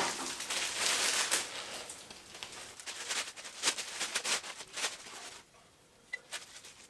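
Rustling and scattered light clicks and knocks of hands handling objects, dying away about five and a half seconds in, then a couple of isolated clicks.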